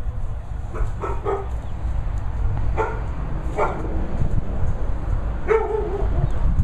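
Springer spaniels in kennel runs barking in short separate barks: a quick cluster about a second in, two single barks around three seconds, and a longer bark near the end, over a steady low rumble.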